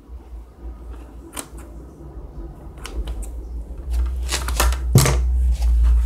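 Handling of a football shoulder pad: a few scattered clicks, then from about four seconds in loud rustling and rubbing of its mesh fabric right against the phone's microphone, with heavy handling rumble and a sharp knock near the end.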